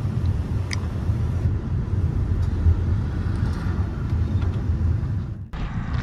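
Steady low rumble of a Hyundai Creta driving along a road: engine and tyre noise heard from inside the car. It cuts off abruptly about five and a half seconds in.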